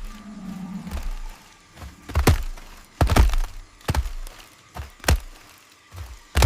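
A series of about eight heavy thuds at uneven intervals, the loudest two and three seconds in.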